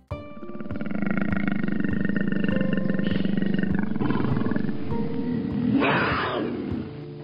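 Tiger growling, then a short, louder roar about six seconds in, over background music.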